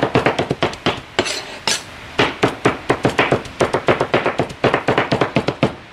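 A meat cleaver and a knife chopping smoked pork shoulder on a cutting board: rapid knocks of the blades through the meat onto the board, several a second, with a short pause about a second in before the chopping picks up again.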